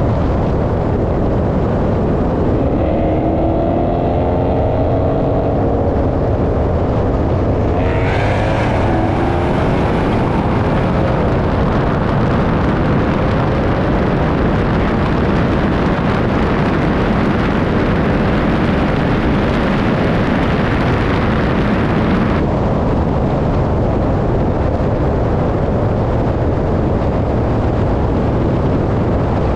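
Dodge Hellcat V8 engines racing at full throttle over a loud, steady rush of noise. The engine pitch rises as they pull through the gears, first a few seconds in and again about eight seconds in.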